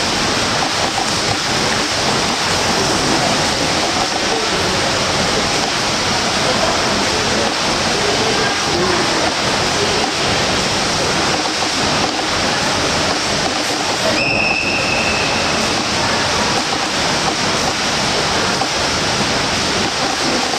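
Swimmers' front-crawl strokes and kicks splashing, with pool water churning in an echoing indoor pool hall, a steady rush of water noise. A brief high tone sounds once about 14 seconds in.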